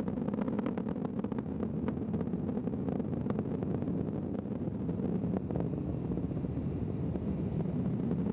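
Space Shuttle Discovery's twin solid rocket boosters and three main engines during ascent, with the main engines throttled back through maximum dynamic pressure. The rocket gives a steady, deep rumble, crackling through the first few seconds.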